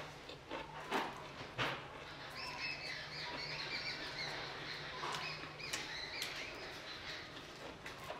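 Mouth eating sounds: chewing noodles and fried chicken, with a couple of sharp crunches in the first two seconds. Birds chirp in the background through most of it.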